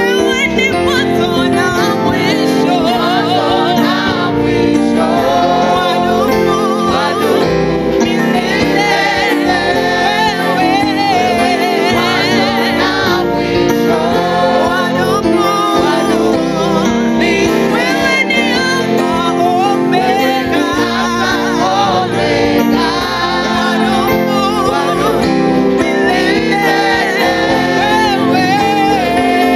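Live gospel praise singing: a woman's lead voice with a mixed choir of women and men, over steady instrumental accompaniment.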